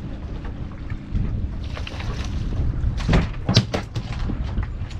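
Wind buffeting the microphone aboard a drifting boat at sea, with a cluster of short sharp knocks a little after halfway through.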